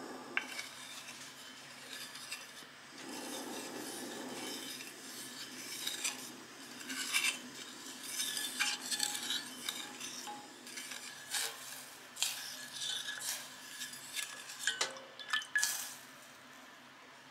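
Wooden spoon stirring milk and cream in a stainless steel saucepan while the sugar dissolves over medium heat, with irregular light knocks and scrapes against the pan. A soft rushing sound comes about three seconds in.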